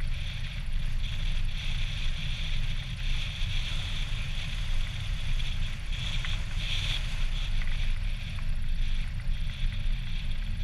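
Motor glider's piston engine and propeller running at low taxi power, a steady drone heard from inside the cockpit.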